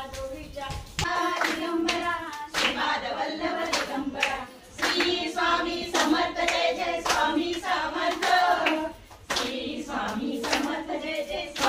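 A group of women singing a song together in chorus, clapping their hands to a steady beat as they dance.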